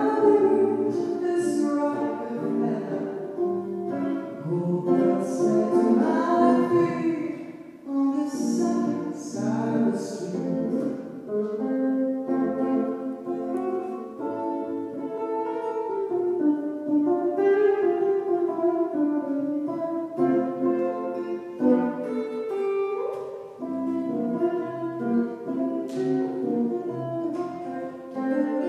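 A woman singing a slow song into a microphone, accompanied by a hollow-body electric guitar.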